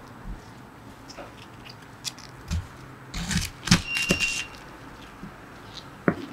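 Kitchen knife cutting through a head of cabbage on a plastic cutting board: scattered cuts and sharp knocks of the blade against the board, busiest about three to four seconds in, with one more knock near the end.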